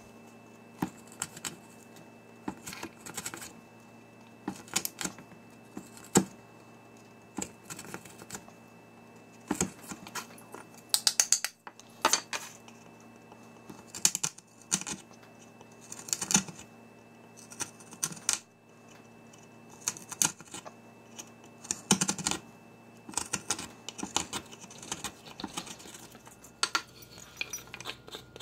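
Hand carving tool cutting and scraping out the bowl of a wooden spoon, in short bunches of sharp, clicky strokes about every second or two.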